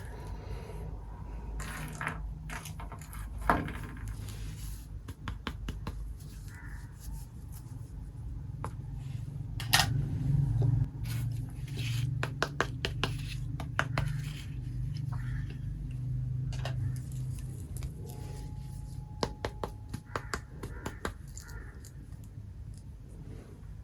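Miniature toy kitchen pieces and their packaging being handled: scattered clicks, taps and scrapes over a steady low hum.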